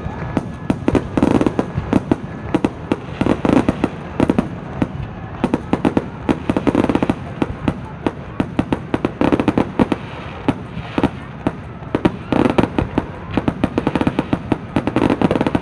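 Fireworks display: a dense, continuous barrage of rapid crackling and popping with repeated heavier booms, typical of a finale.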